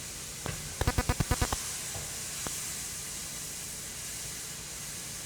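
Hot roux sizzling and hissing steadily just after cold milk has been poured in. About a second in, a quick run of roughly eight clicks from a utensil stirring against the pan, with a couple of single taps later.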